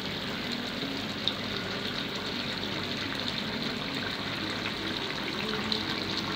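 Chicken and potato curry bubbling and sizzling steadily in the pan as its gravy is cooked down, with scattered small pops.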